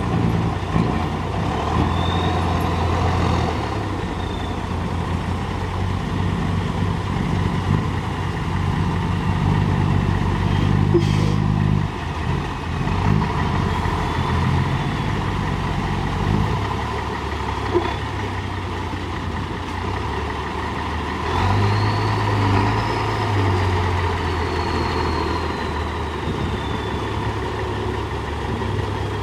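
Diesel engine of a JCB 3DX backhoe loader working, revving up twice under load and dropping back, with a faint high whine rising and falling.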